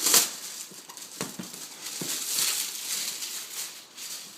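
A box being opened by hand and its packaging handled. There is a loud sharp noise right at the start, a few knocks, then a stretch of rustling.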